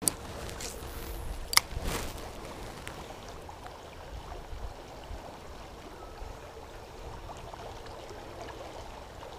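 Stream water flowing steadily, with two sharp clicks in the first two seconds.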